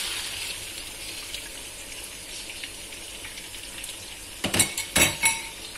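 Rice flour slurry poured into a hot wok of sautéed shallots, garlic and chili: a low, fading sizzle and hiss of the liquid. About four and a half seconds in come a few sharp, ringing metal clanks.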